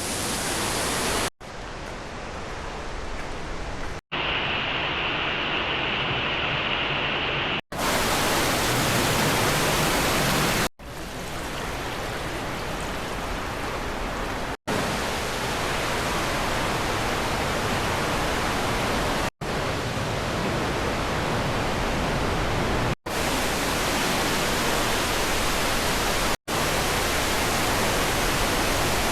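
Steady outdoor rushing noise, broken by abrupt cuts every few seconds where short clips are joined. In one stretch a few seconds in, a steady high hiss sits over it.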